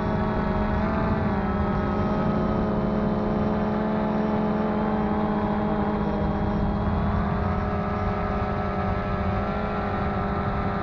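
DJI Phantom 2 quadcopter's electric motors and propellers buzzing steadily in flight, heard up close from the action camera on its frame, with several pitches drifting slightly up and down as the motors adjust.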